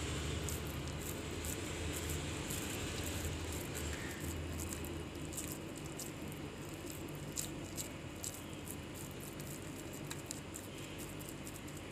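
Soft wet squishing and small sticky clicks of oiled hands pressing and rolling mashed-potato mixture around a boiled egg.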